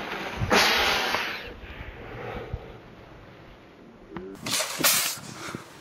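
Compressed-air water bottle rocket launch: a sudden rushing hiss of escaping air and water spray about half a second in, fading over a second or so. Two short noisy rushes follow near the end.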